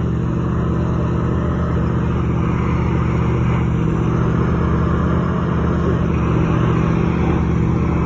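Engine of a slow-moving works train running at a steady low speed: a constant low drone that holds even throughout.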